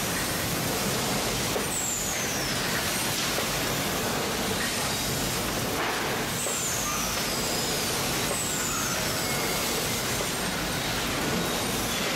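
Steady machinery noise of a citrus packing line and its C-Pack net bagging and welding machine running. A few short high whistles fall in pitch, about two seconds in, then around six and a half and eight and a half seconds in.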